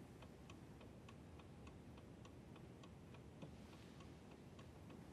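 Mechanical chess clock ticking faintly and evenly, about three ticks a second.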